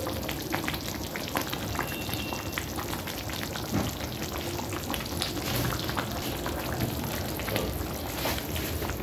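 Thick tomato stew simmering in a pot, with a steady crackle of many small pops and bubbles breaking at the surface.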